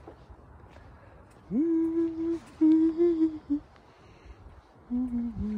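A woman humming a few held notes. The first slides up into a steady note, a second sits at about the same pitch and drops at its end, and a lower phrase begins near the end.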